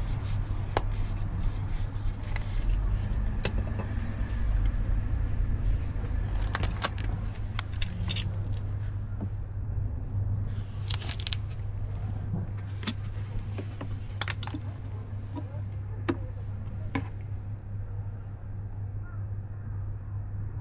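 Scattered sharp metallic clinks and light scrapes, like tools or small metal parts being handled, over a steady low hum.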